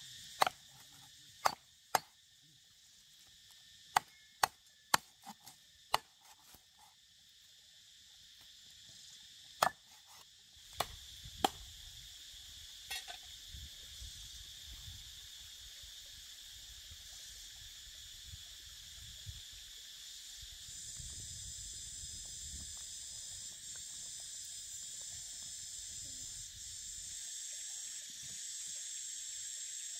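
A cleaver chopping raw snake meat on a board: about a dozen sharp, irregular chops in the first half, the last one about 11 seconds in. A steady, high insect chorus runs underneath and grows louder in the second half.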